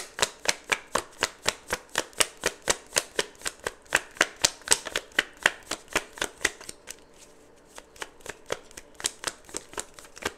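A deck of tarot cards being shuffled by hand: a steady run of crisp card slaps, about four a second, thinning out and getting softer after about seven seconds.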